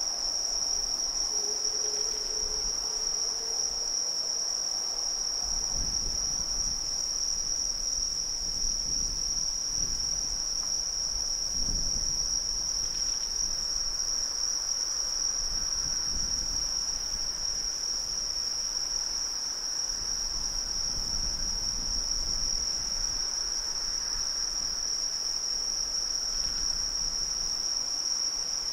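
Crickets chirring in a steady, unbroken high-pitched trill.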